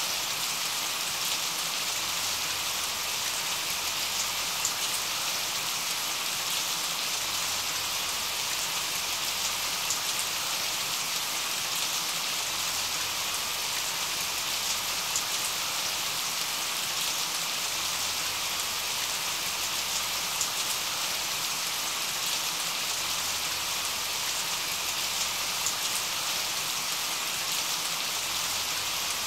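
Steady rain falling: an even hiss of rain with faint scattered drop ticks.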